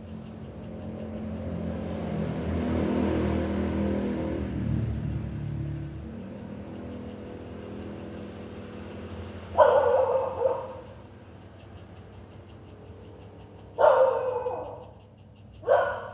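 A dog barks three times: once about ten seconds in, then twice near the end. Before that, a low humming rumble swells and fades over the first six seconds.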